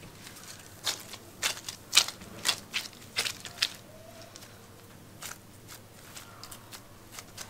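Plastic stretch film crinkling and crackling as gloved hands handle it: a quick run of sharp crackles in the first half, then a few scattered ones.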